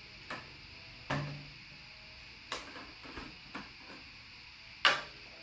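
Plastic clicks and knocks as the clear bottle and cap of a Moulinex portable blender are handled and fitted together. There are about six short sharp ones, and the loudest comes near the end.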